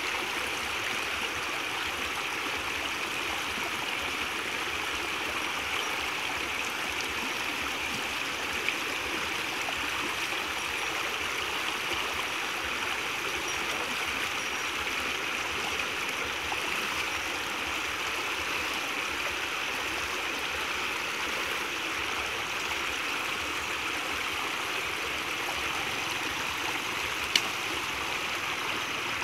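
Creek water pouring steadily through a narrow gap into a bamboo cage fish trap, an even rushing, with a sharp click near the end.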